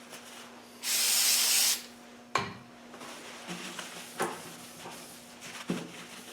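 A spray can of cleaner hissing in one steady burst of about a second, followed by three short knocks.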